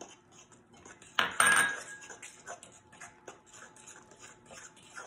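Metal fork stirring a thick banana batter in a ceramic mixing bowl, scraping and clinking against the bowl in quick repeated strokes. A louder ringing clink comes a little over a second in.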